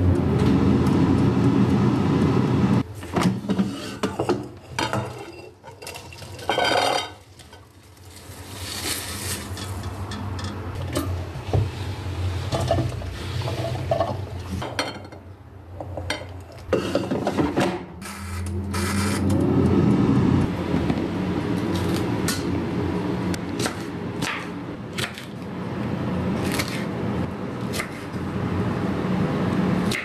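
Air fryer running with a steady fan hum, broken in the middle by clicks and knocks as its basket is pulled out and handled. About two-thirds of the way through, the hum swells back up and holds steady.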